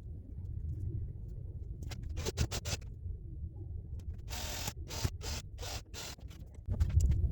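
Workshop handling noises as parts are worked by hand: scattered clicks and light knocks, with a short scraping rasp about four seconds in. A low rumble comes in near the end.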